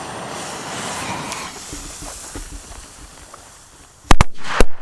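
Three C-Böller firecrackers, their fuses hissing and spitting sparks for about four seconds, then going off with sharp bangs near the end: two almost together and a third half a second later.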